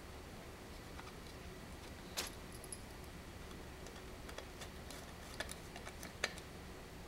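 Small screwdriver turning a collared screw into a plastic battery stopper and base: irregular faint clicks and ticks of metal on plastic, a sharper click about two seconds in, a cluster of clicks later with the loudest near the end.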